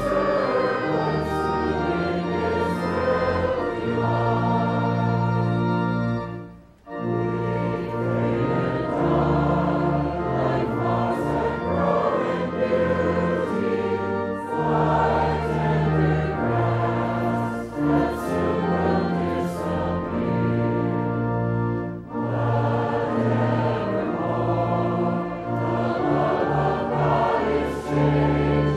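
Church congregation singing a hymn with instrumental accompaniment, in sustained, steady verses. There is a brief break about seven seconds in as one stanza ends and the next begins.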